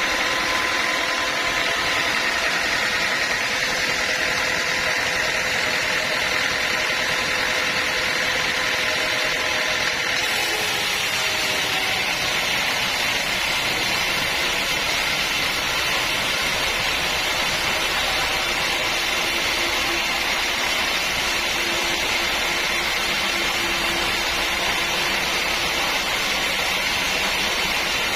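Sawmill machinery running steadily, a continuous mechanical hiss with faint steady tones, turning hissier about ten seconds in.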